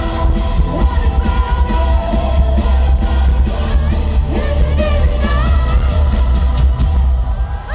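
Live symphonic metal band playing loudly, with a woman singing over heavy bass and drums. The band stops about seven seconds in, at the end of the song.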